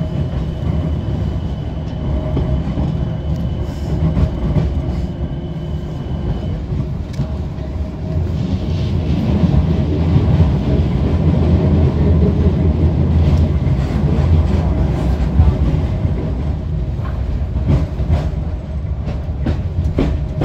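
A train running with a steady low rumble. A thin high whine fades out about six seconds in, and a few sharp knocks come near the end.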